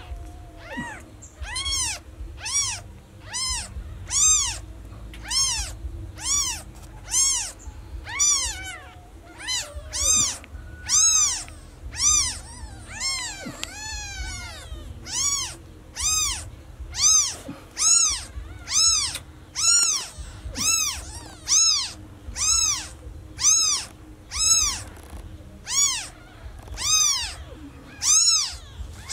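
Newborn kittens meowing over and over for their mother: high, thin cries that rise and fall in pitch, about one a second, with two kittens crying over each other for a while near the middle.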